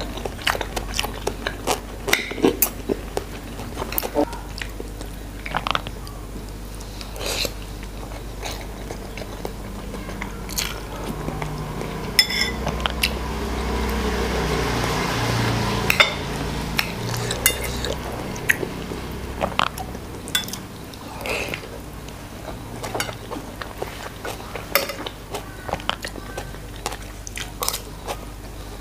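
Metal spoon and fork clinking and scraping on a ceramic plate of rice, with eating and chewing sounds between the clinks. About halfway through, a lower sound swells for several seconds and then fades.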